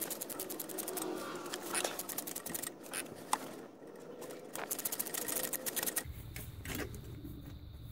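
Ratchet spanner clicking in quick runs as the alternator belt tensioner's adjusting bolt is backed off, with a short pause about three seconds in.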